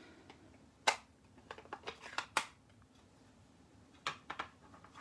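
Scattered light clicks and taps of plastic craft supplies being handled on a tabletop: a stamp ink pad case and a clear acrylic stamp block. The sharpest click comes about a second in, with a cluster of softer ones after it and a few more near the end.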